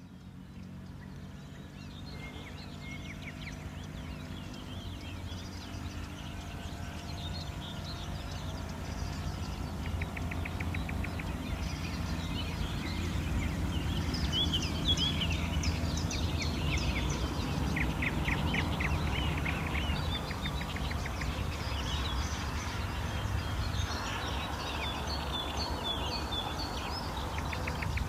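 Morning chorus of many songbirds: overlapping chirps, whistles and fast trills over a steady low rumble. It fades in at the start.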